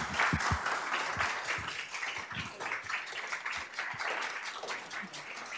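An audience applauding steadily, a dense clatter of many hands clapping that eases off slightly toward the end.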